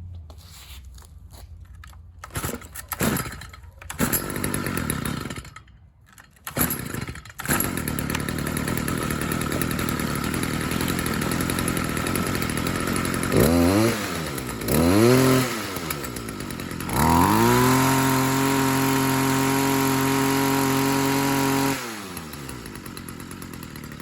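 Stihl FS 45 string trimmer's two-stroke engine test-run on its newly replaced carburetor. After a few short bursts it settles into an idle, is blipped twice, then held at high revs for about five seconds before dropping back to idle.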